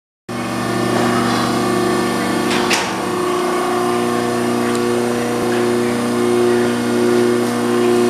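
Cramalot 72CONT BD baler's 220-volt electric motor running with a steady machine hum, swelling and easing slightly. A single sharp clank sounds about two and a half seconds in.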